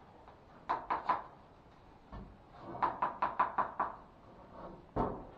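Sharp knocking from work on newly fitted kitchen wall cabinets. There are three knocks about a second in, then a quick run of about eight knocks, and one loud knock near the end.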